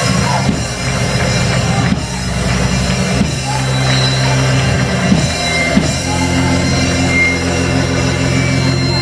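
Live church band playing a praise break: sustained chords over bass and drums, the chord changing every second or two.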